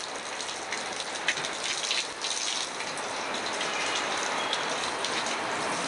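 Strong wind rushing through trees and foliage: a steady hiss that builds slightly, with small scattered ticks and clicks.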